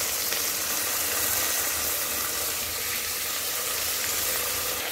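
Steady sizzle of onion, hyacinth beans (avarekalu) and tomato frying in oil in an aluminium pressure cooker.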